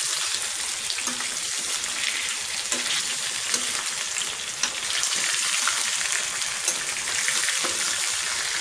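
Chicken pieces and fried onions frying in hot oil in a kadhai, with a steady sizzle and crackle.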